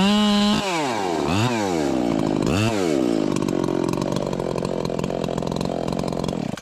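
Gas chainsaw revving: held at high throttle, then dropping and revving up and down twice more, before settling into a ticking idle for the last few seconds.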